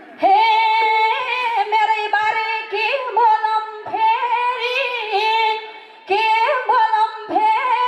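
A woman singing a Nepali dohori folk song with long held notes and ornamented turns. The phrases break for short breaths about four seconds in, again about six seconds in, and once more near the end.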